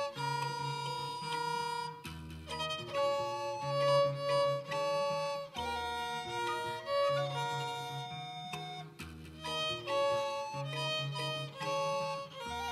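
Small multi-tracked ensemble of violin, recorder, kalimba and acoustic guitar playing together. Held melody notes from the bowed violin and recorder sit over a low figure that repeats every few seconds.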